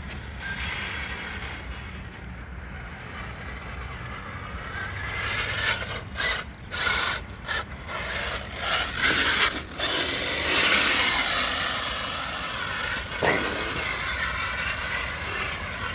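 Electric motor and gears of a radio-controlled truck whining, rising and falling in pitch as the throttle is worked on and off.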